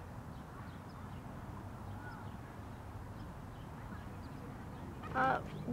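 Quiet outdoor ambience: a low steady rumble with faint, scattered bird chirps, and one brief louder voice-like call about five seconds in.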